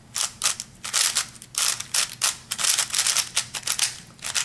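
A new Dayan ZhanChi 3x3 speedcube turned quickly by hand: rapid plastic clicking and clacking as its layers snap round, in quick runs of several turns a second.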